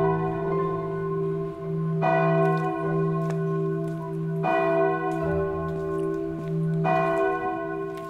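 A single church bell tolling slowly: three strokes about two and a half seconds apart, each one ringing on into the next, with the sound dying away near the end.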